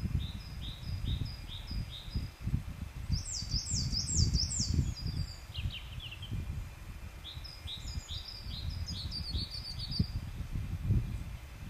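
Songbirds singing several short phrases of quick, repeated high chirping notes, one phrase ending in a falling trill. Under them is a fluctuating low rumble of wind on the microphone.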